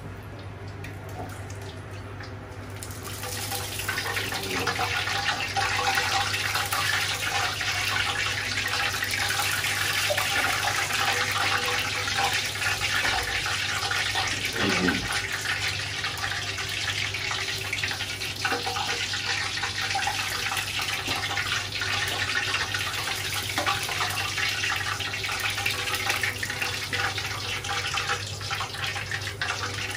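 Pork frying in hot oil in an aluminium pot, sizzling and crackling. The sizzle swells about three seconds in and then keeps on steadily.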